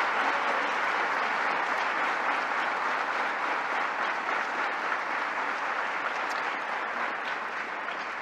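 Large audience applauding, a dense steady clatter of many hands that slowly eases off near the end.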